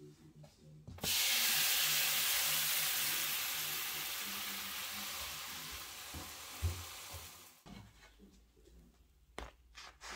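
Flatbread wrap laid into hot oil in a nonstick frying pan, sizzling loudly from about a second in and slowly dying down before cutting off.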